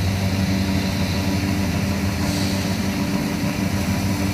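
Kubota DC70 combine harvester's diesel engine running steadily at an even pitch.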